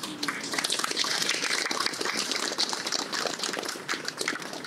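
Audience clapping, a dense patter of many hands that thins out near the end.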